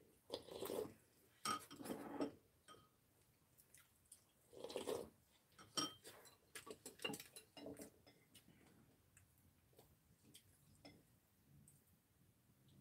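Scattered light clinks and taps of metal chopsticks and spoons against ceramic dishes, with a few short soft noises of people eating in between.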